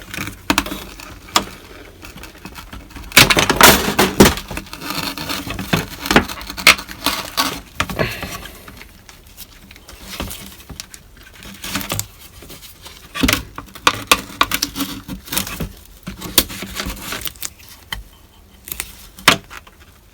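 Hand tools prying and scraping at the plastic hatch trim and the old hatch-release button switch of a Toyota Prius, giving irregular clicks, taps and rattles, busiest a few seconds in and again past the middle.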